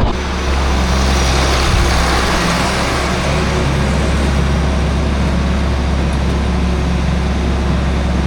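A large engine running steadily at a constant speed, with a low hum and a hiss over it.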